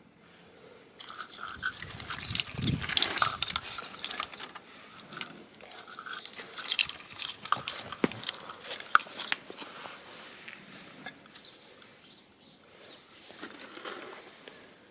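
Wires and plastic connectors of a car-stereo wiring harness being handled: irregular rustling and crinkling with sharp plastic clicks, busiest in the first few seconds.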